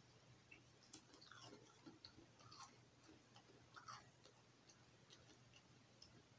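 Faint crunching and chewing of a Cheez-It cheese cracker: a scatter of small crackles, busiest in the first four seconds and then thinning out.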